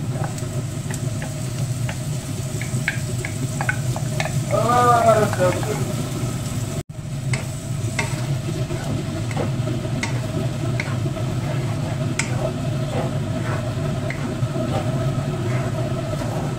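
Blended chili paste frying and sizzling in a nonstick frying pan while a wooden spatula stirs it, with small scraping taps against the pan. A short burst of voice about five seconds in is the loudest moment.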